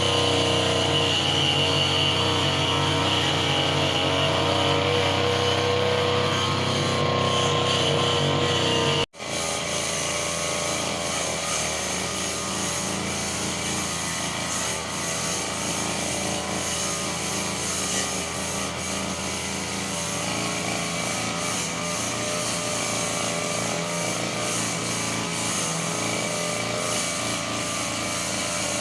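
Petrol brush cutter engine running steadily at cutting speed. About nine seconds in, the sound cuts out abruptly for a moment, then the engine carries on.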